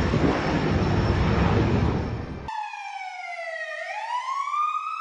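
A loud rushing noise, then an abrupt cut about halfway through to an emergency-vehicle siren whose wail slides down in pitch and then climbs again.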